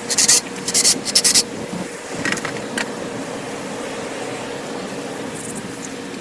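Metal parts scraping against each other in several short strokes during the first half, over a steady background hum.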